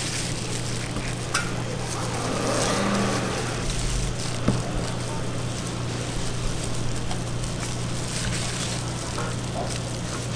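Food-stall kitchen noise: a steady low hum under an even hiss, with scattered light clicks and one sharper knock about four and a half seconds in.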